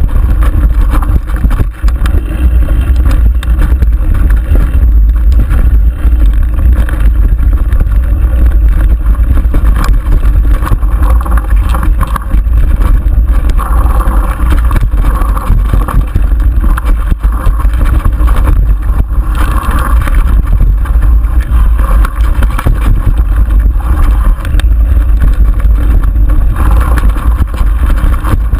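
Wind rumbling on an action camera's microphone as a mountain bike descends fast over rough dirt singletrack, with the bike rattling and knocking over bumps throughout.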